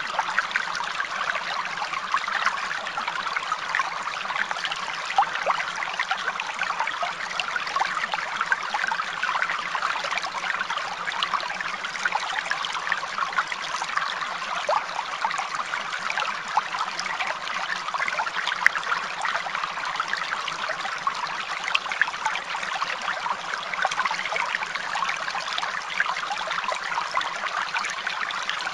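Running water trickling and splashing steadily, like a small stream, with a dense patter of small drips and splashes.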